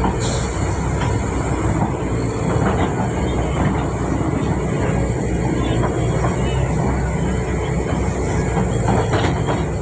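Backhoe's diesel engine running steadily under working load, with a few short knocks from the machine.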